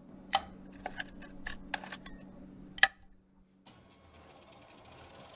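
Film projector being readied: several sharp mechanical clicks and clacks over a steady hum, then, about three and a half seconds in, the projector starts running and its clatter speeds up.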